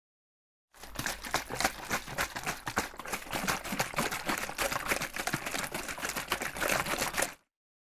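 Dense, irregular clicking and crackling that starts about three-quarters of a second in and cuts off abruptly shortly before the end.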